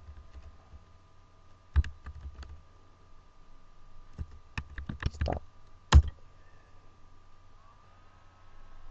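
Computer keyboard being typed on: scattered clusters of keystrokes, with one louder keystroke about six seconds in.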